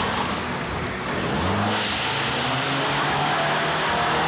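Old Audi saloon's engine revving up as the car pulls away. A loud hiss of tyres on the wet road joins it about two seconds in.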